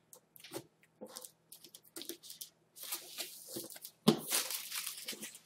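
Plastic shrink wrap on a laptop box crackling and tearing as it is cut with a knife and pulled away, in short scattered rustles. The loudest rustle comes a little after four seconds, as the wrap is swept off the box.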